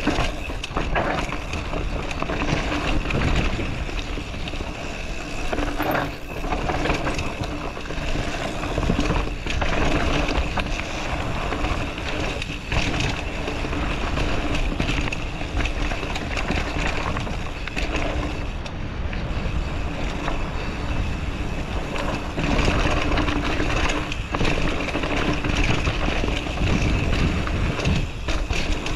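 Mountain bike rolling fast down a dirt forest trail: a steady rush of tyre and wind noise on the camera's microphone, with knocks and rattles as the bike goes over bumps.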